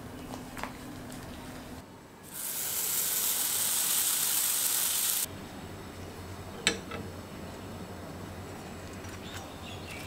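A loud, steady hiss at a stovetop waffle iron, starting about two seconds in and cutting off abruptly about three seconds later. A single sharp click follows a second and a half after it.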